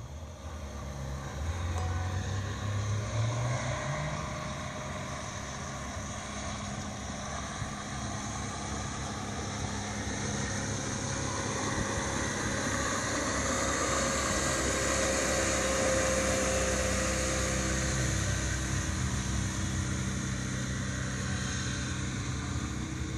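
An 85 hp Chrysler outboard motor on a small speedboat runs at towing speed, its pitch rising and falling as the throttle changes. A rushing hiss of water swells in the middle.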